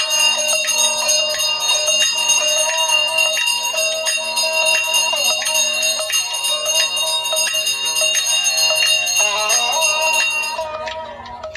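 Temple bells ringing in a steady rhythm during an aarti, with sustained high ringing and a stroke roughly every half second, stopping shortly before the end.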